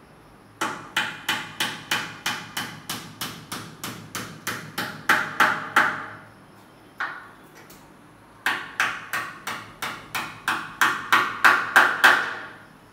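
A hand hammer tapping at the top of an aluminium window frame during fitting, about three blows a second, each with a short ring. There are two runs of blows, with the last blows of each run the loudest, and a single blow in the pause between the runs.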